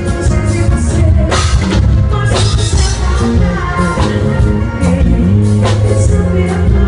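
Live band music played loud over a stage PA, with drum kit hits, a moving bass line, electric guitar and keyboards.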